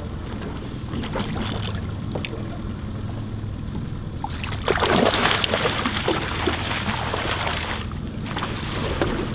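Boat motor running with a steady low hum. From about halfway in comes a loud few-second burst of splashing water as a landing net is dipped over the side for a hooked salmon.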